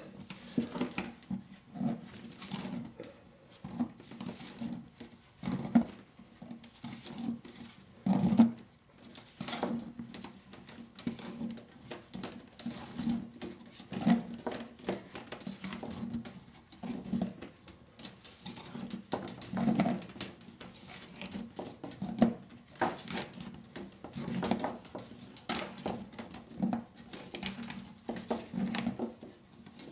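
Steel mainspring of a Victor phonograph motor being worked by gloved hands into its metal spring barrel, bent and pushed down coil by coil. It gives an uneven run of scrapes, taps and knocks of spring steel against the barrel, with a couple of louder knocks about six and eight seconds in.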